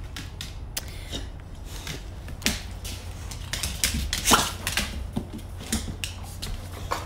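A dog's claws clicking and tapping irregularly on a vinyl floor as it moves about, with a sharper knock about four seconds in.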